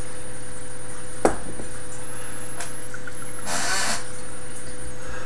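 A steady electrical hum and hiss throughout, with a single sharp knock about a second in and a short breathy hiss of air about three and a half seconds in.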